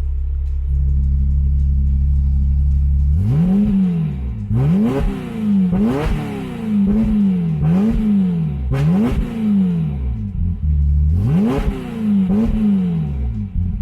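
Ferrari F355's V8 with straight-pipe exhaust and the exhaust valves open, idling and getting louder about a second in. From about three seconds in it gives a quick series of sharp throttle blips, each revving up and dropping back, with a brief return to idle near the two-thirds mark.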